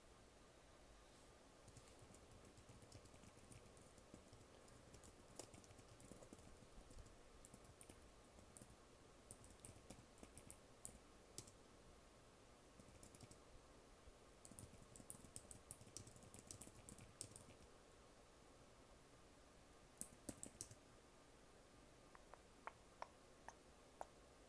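Soft typing on a computer keyboard: runs of quick keystrokes with short pauses between them, as the typist works on an essay.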